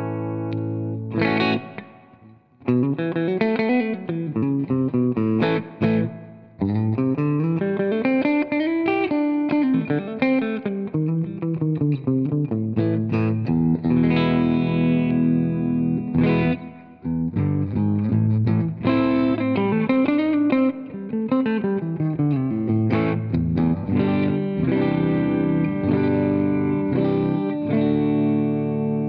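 Epiphone Korina Explorer electric guitar being played: quick single-note runs that climb and fall in pitch, alternating with held chords. The playing breaks off briefly a few times, about two and a half seconds in, around six seconds in and again around seventeen seconds in.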